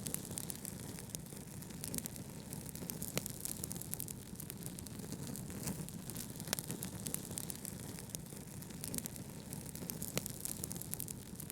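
Wood fire crackling in a fireplace, with scattered sharp pops and clicks, a few louder ones standing out, over a steady low hiss of brown noise.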